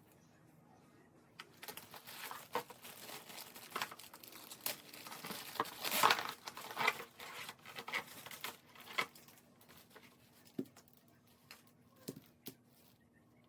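Irregular crinkling and rustling with many short clicks, busiest in the middle, then thinning to a few scattered clicks near the end.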